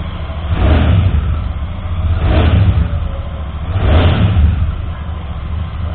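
Royal Enfield Shotgun 650's 648 cc parallel-twin engine idling through its exhaust, blipped with the throttle three times: about a second in, at two seconds and at four seconds, each rev swelling and dropping straight back to idle.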